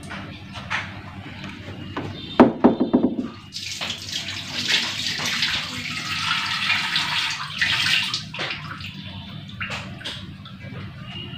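Kitchen tap running into a steel bowl for about four seconds, starting a little after three seconds in and stopping about eight seconds in. Just before it, a brief loud clatter with a low ring.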